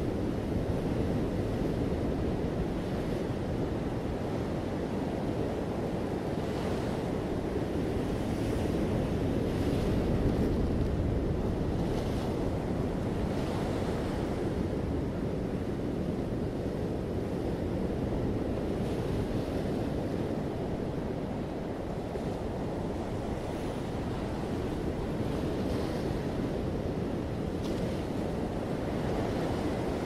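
Sea waves breaking and washing on a rocky shore: a steady low rush of surf that swells gently now and then, with wind buffeting the microphone.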